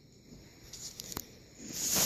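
Border Collie mouthing and chewing her toy: a few soft clicks and rustles, then a breathy hiss swelling near the end.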